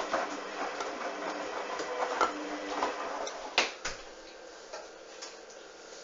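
Hoover washing machine mid-cycle, giving irregular clicks and knocks. Two sharper knocks come about three and a half seconds in, and then it goes quieter.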